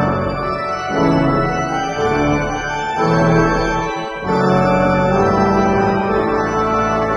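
Organ playing slow, sustained chords, the chord changing every second or two.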